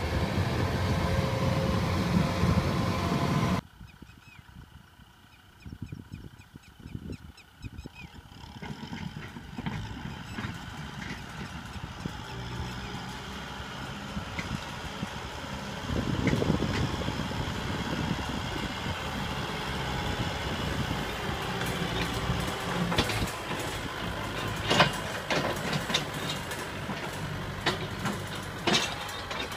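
A Kubota combine harvester's engine running, cut off suddenly about three and a half seconds in. Then a Kubota M6040 SU diesel tractor working with a disc plough: its engine comes up out of a quiet stretch and runs steadily, with several sharp knocks near the end.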